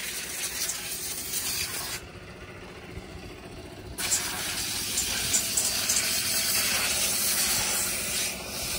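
Steady hiss of spraying water. It turns quieter and duller for about two seconds, from two seconds in, then returns louder.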